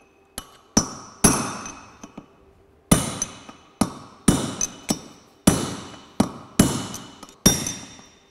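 Hammer blows on a steel drift set against the old bearing track (outer race) inside a Land Rover wheel hub, driving the track out by hitting opposite sides of it in turn. About a dozen sharp metallic strikes, each with a brief ring, with a pause after the first three.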